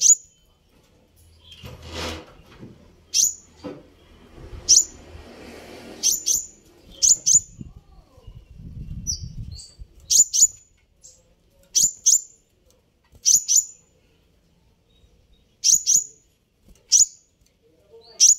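Male purple-throated sunbird ('kolibri ninja') giving sharp, high chirps that sweep downward, often in quick pairs, about a dozen in all. Wing flutter and rustling come in the first few seconds.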